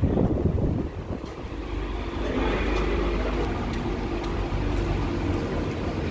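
Steady low rumble of a covered concrete parking garage, vehicle and building noise with no clear single event.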